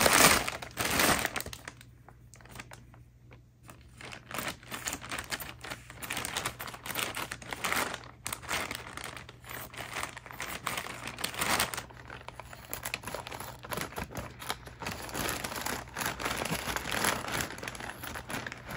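Scissors cutting open a plastic poly mailer bag, the plastic crinkling and rustling as it is handled, with sharp snips throughout. The crinkling is loudest in the first second or so.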